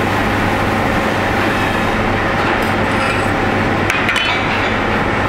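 Steady roar of a commercial kitchen's extraction and ventilation, with a low hum underneath, and a few light clinks of a spoon against a small saucepan about four seconds in.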